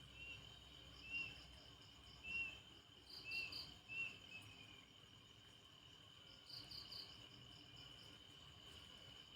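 Faint night chorus of crickets: a steady high trill with quick triple pulses above it. In the first half, five short chirps sound about once a second and are the loudest thing heard.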